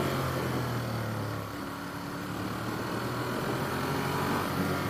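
Ducati Monster's V-twin engine running steadily on the move, mixed with wind noise. The engine note and level dip about a second and a half in, then hold steady again.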